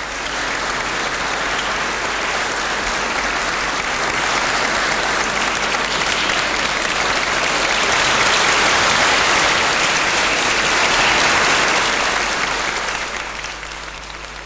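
Audience applauding, growing to its loudest past the middle and dying away near the end.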